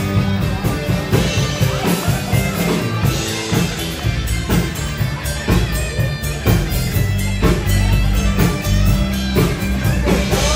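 Rock music played on guitar and drums with a steady beat, loud and continuous.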